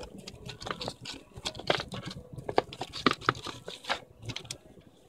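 Thin plastic sleeve crinkling and crackling in irregular bursts as it is handled and pulled off a small GPS unit, with light rustle of the cardboard box; the sharpest crackles come in the middle.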